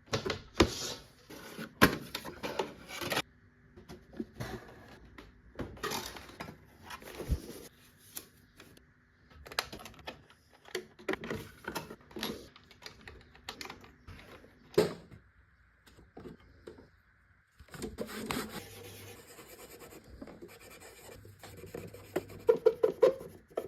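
Irregular scratching, rubbing and light clicks of hand work on a computer's internals, in short bursts broken by sudden silent gaps.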